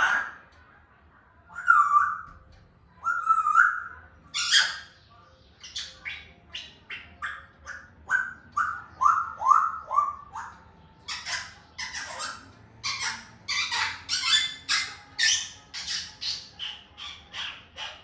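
African grey parrot calling: a few bending whistles, then a long run of quick repeated calls, about three a second. The calls start as short falling whistles and turn into harsher squawks.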